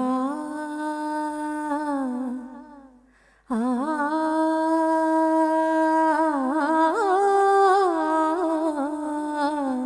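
A woman's voice singing the wordless, hummed opening of a song: long held notes with slow ornamented turns. There are two phrases, with a short breath break about three seconds in.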